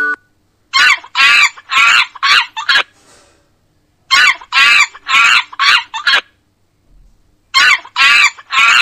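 Monkey calling in short, high-pitched chattering calls: three bouts of five or six calls each, the same bout repeated about every three and a half seconds.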